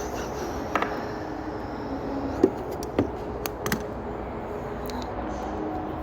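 A few short, sharp metal knocks and clinks of hand tools working on machinery, over a steady background hum.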